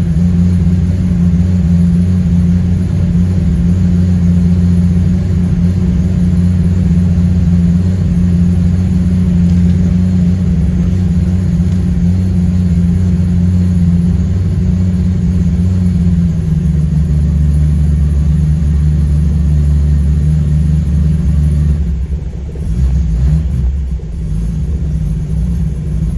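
1988 Holden VL Turbo's RB30 turbocharged straight-six idling on E85 ethanol shortly after a cold start, warming up. The idle is steady and drops slightly about two-thirds of the way through, and the sound briefly dips near the end.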